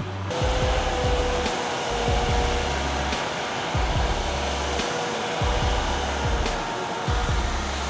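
Forestry tractor running: a steady whooshing hiss with a faint tone drifting slowly down in pitch, under background music with a deep, pulsing bass beat.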